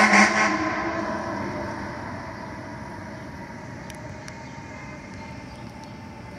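Fire engine's horn sounding loudly, cutting off about half a second in, then fading away as the truck moves off, leaving steady street traffic noise.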